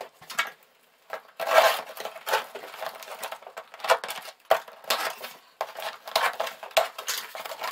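Scissors cutting through the packing tape on a cardboard box and the box flaps being pulled open: a run of irregular scraping, ripping and clicking noises, with a short pause about a second in.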